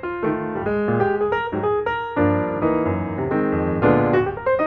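Background piano music: a busy run of single notes over sustained chords.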